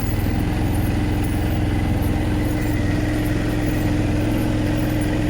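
A small vehicle's engine running steadily, with an even low rumble and a constant hum, as it drives slowly across a waterlogged field.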